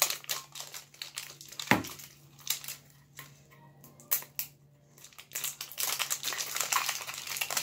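Clear plastic shrink wrap crinkling and crackling as it is picked at and peeled off a Pokémon Great Ball tin, with a sharp tap a little under two seconds in and denser crinkling over the last two seconds. A steady low hum runs underneath.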